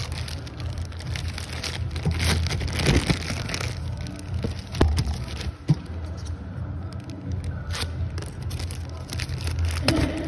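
Plastic courier mailer bag crinkling and rustling as it is handled and turned over, with irregular sharp crackles and a few louder clicks, over a steady low hum.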